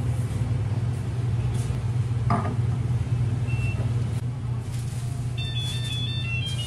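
A steady low machine hum from café equipment, with a single knock about two seconds in and a short run of high tones near the end.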